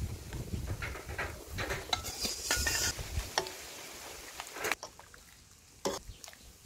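Metal ladle stirring tapioca dumplings in sugar syrup in a metal pot, clinking and scraping against the pot. Two sharper knocks come about five and six seconds in.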